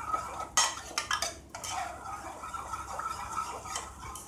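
A steel ladle stirring cooked moong dal and water in an aluminium pressure cooker, clinking against the pot a few times.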